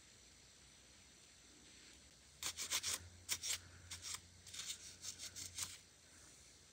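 Lint-free nail wipe soaked in gel cleaner rubbed briskly over a cured gel nail: a quick series of short rubbing strokes, starting about two and a half seconds in and lasting about three seconds. It is wiping off the sticky uncured inhibition layer after curing.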